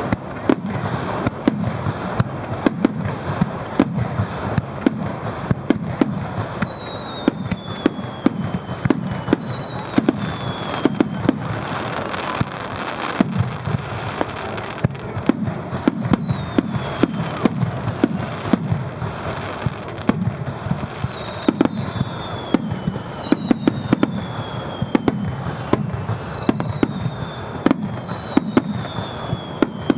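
Aerial fireworks display: a dense, continuous barrage of shell bursts and booms over a steady rumble. From about seven seconds in, repeated high whistles fall in pitch between the bangs.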